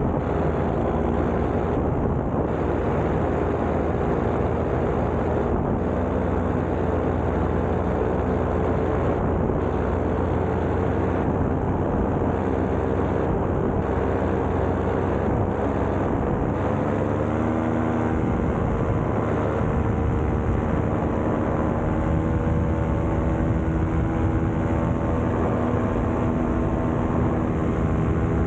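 Paramotor engine and propeller running steadily in flight, its pitch drifting slightly up and down.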